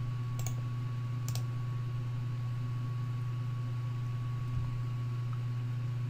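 Two clicks of computer keyboard keys, about half a second and a little over a second in, over a steady low electrical hum.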